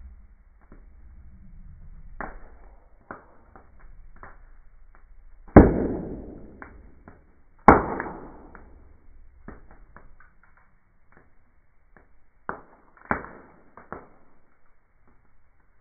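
Wood fire crackling in slowed-down, slow-motion audio: scattered small clicks, with two loud pops about two seconds apart near the middle and two more, quicker, near the end, each trailing off.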